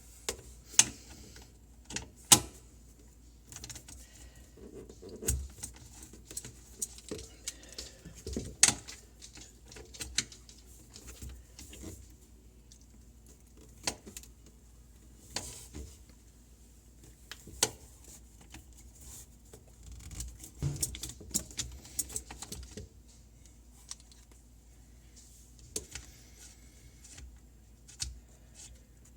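Irregular sharp clicks and clinks of a hand tool working metal fittings under a sink, as a drain line is loosened, with a few duller knocks.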